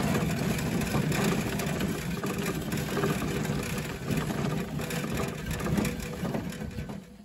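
Small engine of a narrow-gauge rail vehicle running steadily at low speed as it rolls along the track; the sound fades out near the end.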